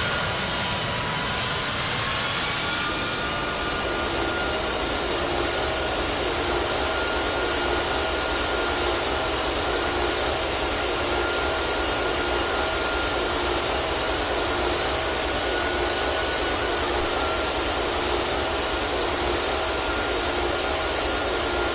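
An airplane's engines during a landing: a steady roar under several high whining tones, some of which climb slightly in pitch over the first few seconds.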